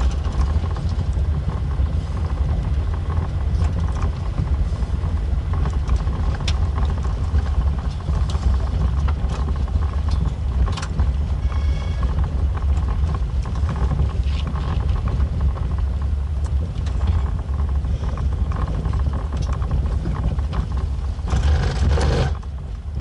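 Jeep driving on a gravel road, heard from inside: a steady low rumble of engine and tyres, with scattered small clicks and rattles and a brief louder clatter near the end.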